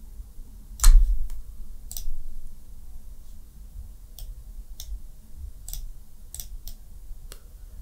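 Irregular sharp clicks of a computer mouse, about eight in all, the loudest about a second in, over a faint low room rumble.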